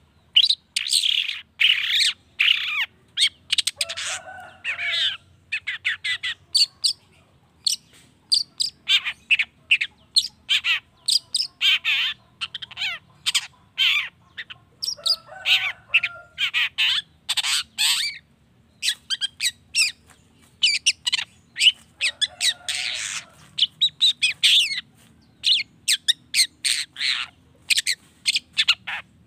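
Long-tailed shrike (cendet) singing a fast, varied song of short, sharp high notes in rapid runs, broken by a few brief pauses, with some lower, harsher squawking calls mixed in.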